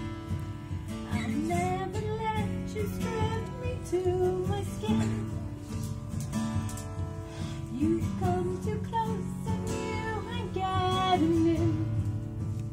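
Two acoustic guitars strumming while a woman sings over them, in two vocal phrases with a short guitar-only gap between.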